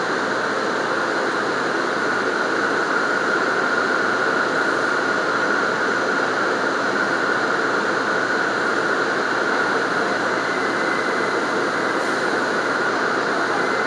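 Steady noise of an R179 subway car carrying along the elevated tracks, heard from inside the rear car. A faint high whine comes in near the end.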